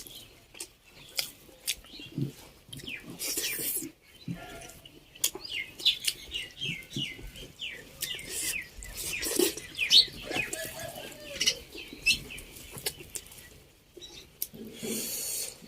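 Small birds chirping over and over, in quick runs of short falling chirps, thickest in the middle, with scattered sharp clicks.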